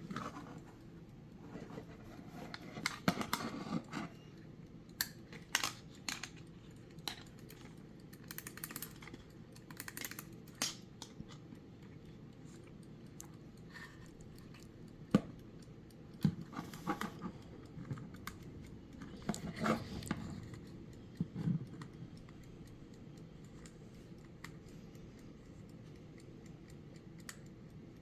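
Irregular clicks, taps and short rustles of a vintage Linden wind-up folding travel alarm clock being handled, in clusters with quiet gaps between, the sharpest single click about halfway through.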